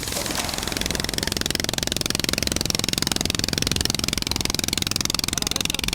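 Small boat engine running steadily with a fast, even chugging beat, swelling in over the first second.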